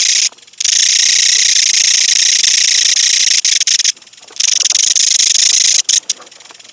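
Japanese kutsuwamushi katydid (Mecopoda niponensis) stridulating: a loud, shrill, raspy buzz that breaks off briefly three times and starts again.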